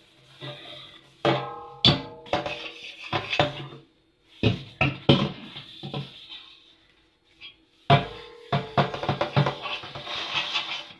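Metal couscoussier pot knocking and clanking as it is washed in a sink. The knocks are irregular, some ring briefly, with short pauses between them.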